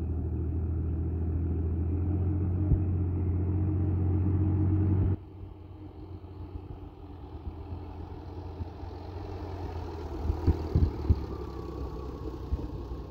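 Sonalika tractor's diesel engine running steadily, close and loud. About five seconds in it drops suddenly to a quieter engine sound, with a few sharp knocks near the end.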